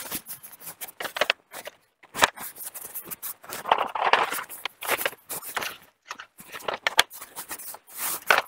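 Hard plastic Milwaukee Packout tool boxes knocking and clicking as they are lifted out of a car boot and stacked on a wheeled trolley, with footsteps and scuffing on icy, snow-crusted ground. Irregular sharp knocks and short scrapes, the loudest about two seconds in and near the end.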